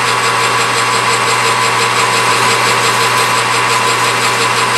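Metal lathe running with a steady whine while a hand file is worked against the spinning steel pin in its chuck.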